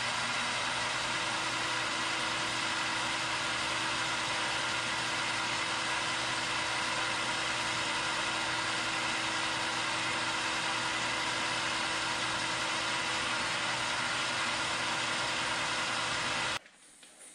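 Metal lathe running steadily while a carbide-insert tool takes a light cut on the outside diameter of a brass feed nut: an even mechanical hum with a steady whine and hiss. It cuts off suddenly near the end.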